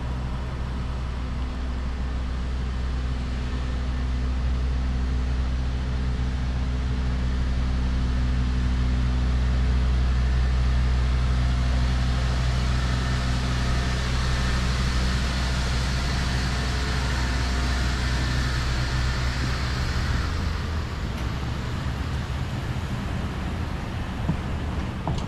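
Shuttle minibus engine idling at a bus stop: a steady low engine hum that grows louder towards the middle and drops away about twenty seconds in.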